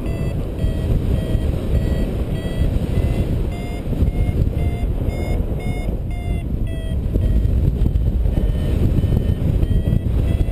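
Paragliding variometer beeping in a quick, repeating string of short tones, about two to three a second, with a brief pause after about seven seconds: the audio signal of the glider climbing in lift. Steady wind rush on the microphone underneath.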